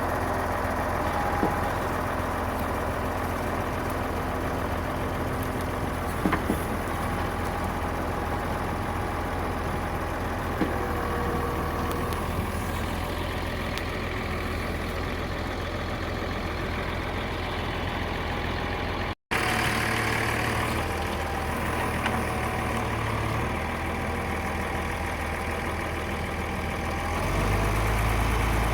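Engine running steadily to drive a hydraulic forestry crane loading logs, with a few short knocks. It breaks off for a split second about two-thirds of the way through, and the engine gets louder near the end as it takes more load.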